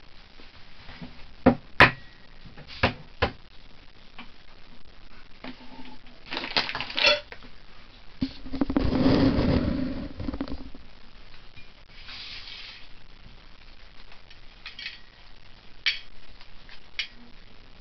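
Sharp taps and clinks of dishes and eggshell at a table, as soft-boiled eggs are cracked and peeled over a plate. There is a scrape a little after six seconds in, and a few seconds of close rustling just past the middle.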